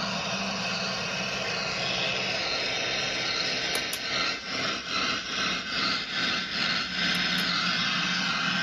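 Electric guitar played through fuzz and effects pedals into a Vox AC15 amplifier: a dense, noisy wash of distorted sound. For a few seconds in the middle it pulses about twice a second.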